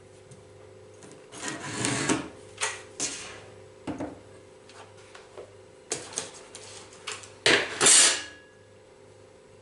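Irregular scraping and rubbing noises from hand work on metal parts at the bench. There are several short bursts, a longer one about a second in and the loudest near the end, over a faint steady hum.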